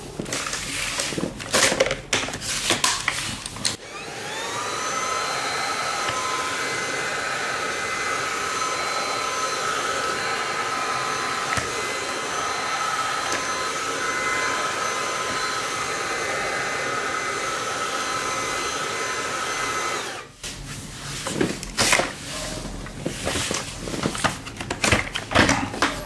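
Xiaomi G11 cordless stick vacuum cleaner switched on about four seconds in. Its motor spins up with a rising whine, then runs steadily with a high whine over a rush of air, and stops abruptly about twenty seconds in. Handling clicks and knocks come before and after.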